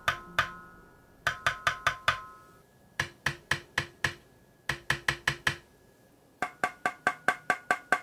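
Bursts of keystrokes on a Keychron Q1 aluminium gasket-mount mechanical keyboard, five quick runs of sharp clacks, with a metallic ping ringing on from the case after the presses. About halfway through, the taps come from a second keyboard played for comparison, one meant to have no ping.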